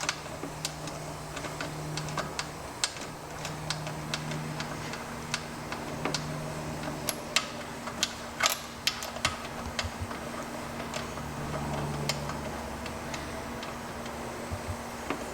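Irregular light metallic clicks and taps of small parts being fitted by hand on a Tillotson engine's overhead-valve rocker and push-rod assembly, over a faint intermittent low hum.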